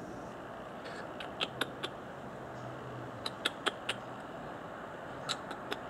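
Cat crunching dry kibble: three short runs of sharp crunches, about four in each run, over a steady low background hum.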